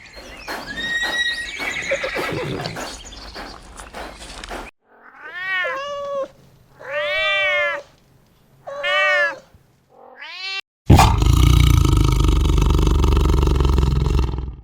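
Animal calls from several farm animals: first a busy mix of animal noises with a few bird-like chirps, then four separate calls of about a second each that rise and fall in pitch, then a loud, rough, low call near the end.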